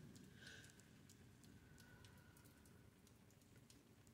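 Faint light rain: scattered raindrops ticking and pattering irregularly over a low steady background noise. A faint thin high tone comes in about half a second in and trails off over a couple of seconds.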